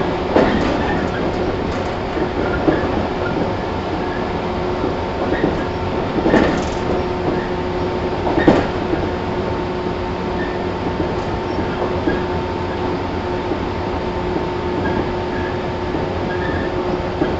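Running sound of a 115 series 1000 subseries electric train, heard inside the motor car KuMoHa 115-1005: a steady drone with a constant whine as it runs at an even speed. Three wheel knocks over rail joints come about half a second, six and a half, and eight and a half seconds in.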